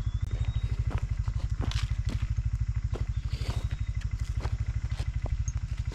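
A vehicle engine idling with a steady, fast low throb, with a few light rustles and clicks over it.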